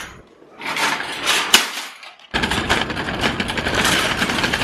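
Metal shopping trolley rattling as it is pulled from a nested row. From about halfway it gives a steady clatter as it is pushed over paving stones.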